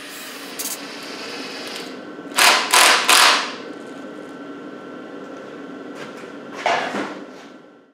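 Cordless drill-driver with a long socket extension running bolts into an engine's front cover: three short bursts in quick succession about two and a half seconds in, and one more near the end.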